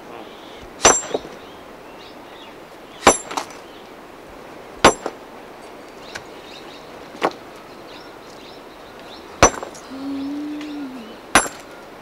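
Steel hammer striking stone to break it, six sharp ringing blows about two seconds apart. A short low hum sounds briefly about ten seconds in.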